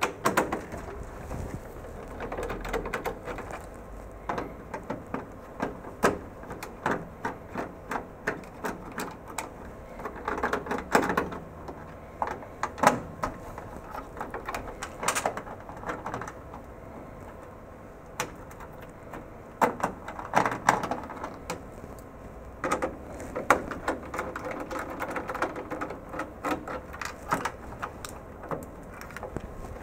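Screws being worked with a hand screwdriver on a metal panel mount: a long run of sharp, irregular clicks, at times about two a second, with short bursts of rattling and scraping.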